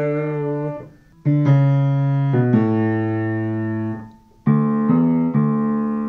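Acoustic piano played by hand: two long chords, each struck and left to ring and fade, closing out a tune.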